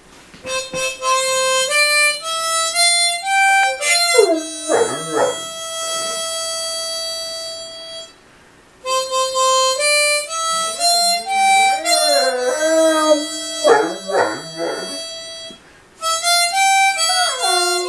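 Harmonica playing runs of notes that climb step by step and hold long notes, with short breaks about eight and sixteen seconds in. A Great Dane puppy howls and whimpers along in sliding, wavering wails that swoop low, most strongly around four to five seconds in and again from about eleven to fifteen seconds.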